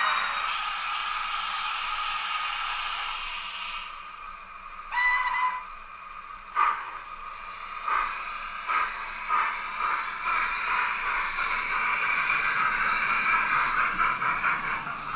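Sound chips in OO-gauge model steam locomotives: a steady steam hiss, one short whistle about five seconds in, then exhaust chuffs starting at about six and a half seconds that quicken and run together as the train gets under way.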